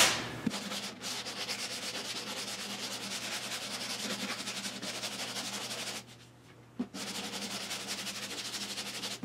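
A long hand sanding block worked in rapid back-and-forth strokes over body filler and bare steel on a car door, a dry rasping rub. The strokes stop for under a second about six seconds in, then start again after a light knock.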